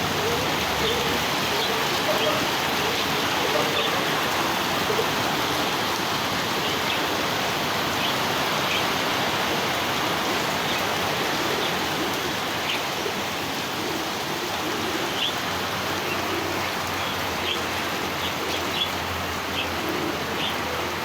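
Bird-market ambience: many small caged birds chirping in short calls over a steady hiss, with soft low coos from pigeons.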